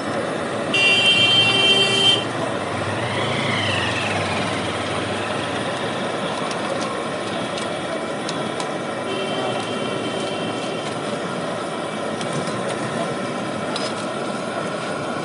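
Fuluri fritters deep-frying in a kadai of hot oil, sizzling steadily under street traffic noise. A vehicle horn honks loudly about a second in, a short rising-and-falling pitched sound follows, and a fainter horn sounds about nine seconds in.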